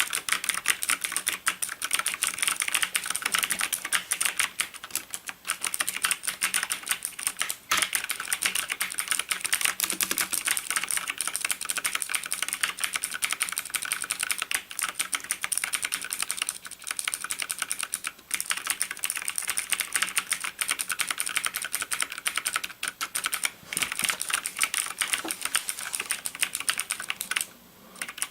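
Nixeus Moda v2 mechanical keyboard with clicky Kailh Blue switches, keys pressed rapidly and continuously in gaming-style bursts, a dense stream of clicks with a short pause near the end.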